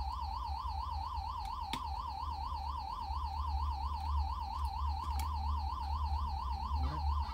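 An electronic siren warbling rapidly, rising and falling about four or five times a second, over a steady low hum, with a couple of short clicks.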